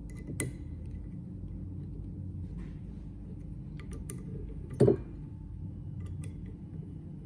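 Light metallic clicks of a hex key and socket cap head screws being started by hand into the gearbox's air shift cylinder, with one louder dull knock about five seconds in, over a steady low hum.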